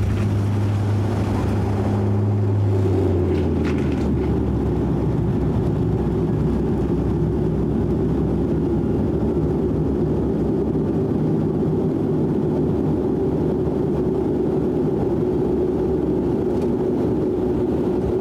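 Cabin sound of a De Havilland Canada Dash 8-400 turboprop's engines and propellers during the landing rollout. A strong low propeller hum fades away about three seconds in, leaving a steady engine and airflow rumble as the airliner slows to taxi speed.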